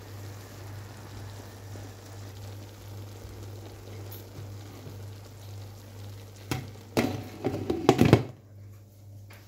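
Pot of cooked rice and peas sizzling faintly over a steady low hum, then a short run of loud clattering knocks against the pot about six and a half to eight seconds in, after which the sizzle falls quiet.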